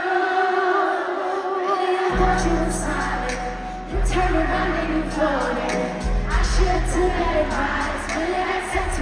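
Live R&B performance: a woman singing into a microphone over the concert sound system, with a deep bass line coming in about two seconds in and moving to a new note every couple of seconds.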